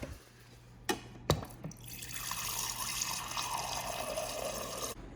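Water pouring steadily for about three seconds to fill the coffee maker for its first water-only run, stopping suddenly just before the end. Two short clicks come first, about a second in.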